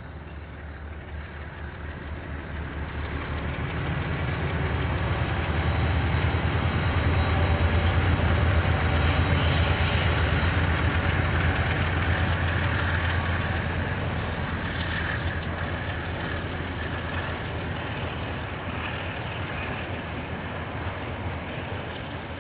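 Diesel locomotive of a KiwiRail train passing, its engine's low rumble building to a peak about eight seconds in and then slowly fading. Heard through a security camera's microphone, so it sounds dull, with no high end.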